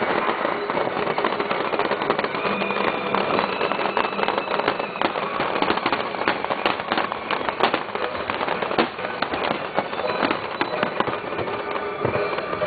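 Fireworks display: a dense, continuous crackling and popping of many bursting shells, steady throughout with no single dominant boom.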